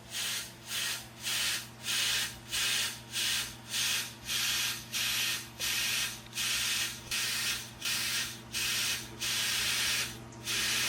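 Compressed-air blow gun fired into a motorcycle rear brake caliper in short hissing blasts, about two a second, to force out a stuck caliper piston.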